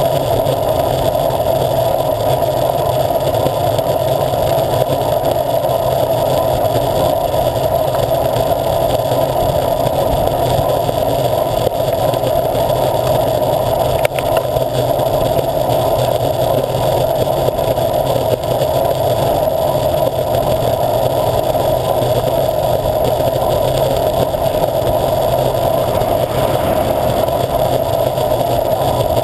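Steady wind and tyre noise on the microphone of a camera mounted low on a bicycle riding along a tarmac road, with one short click about halfway through.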